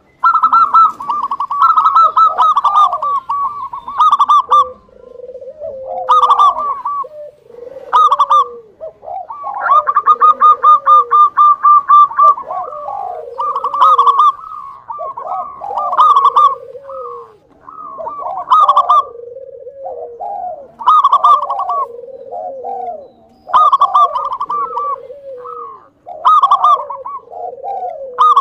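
Zebra dove (local Javanese perkutut) singing: phrases every two to three seconds, each a fast stuttering run of notes followed by lower rounded coos, with one longer run about ten seconds in.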